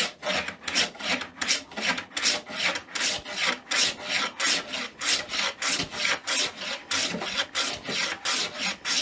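Hand plane with a coarse-set blade shaving the edges of two boards clamped together, in quick repeated strokes of about two or three a second, each a brief rasping swish of the iron cutting wood.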